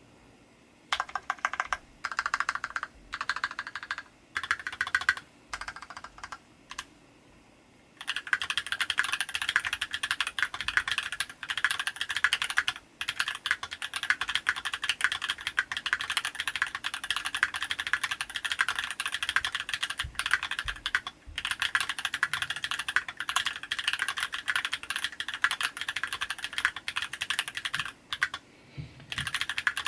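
Typing on a mechanical keyboard with lubed Holy Panda tactile switches and PBT keycaps in an aluminium case. It starts as short separate bursts of keystrokes, and about eight seconds in turns to fast continuous typing with a few brief pauses.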